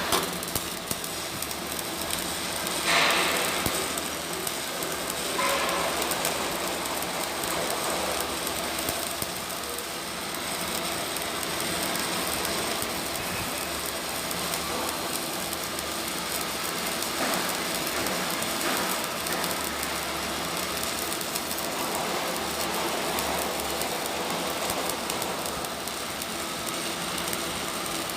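Electric arc welding: the arc crackling and sizzling steadily as a bead is run, with a couple of brief louder pops a few seconds in.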